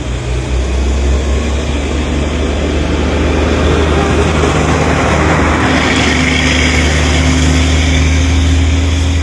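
A steady low rumble with a faint engine-like hum, typical of a motor vehicle running, growing slightly louder partway through with a brighter hiss about six seconds in.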